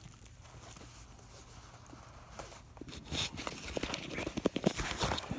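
Rustling of packaging and a run of small clicks and knocks as a small boxed item is handled and drawn out of a padded plastic mailer, mostly in the second half.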